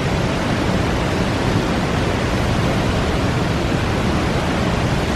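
Waterfall pouring into a plunge pool close by: a loud, steady, unbroken rush of water.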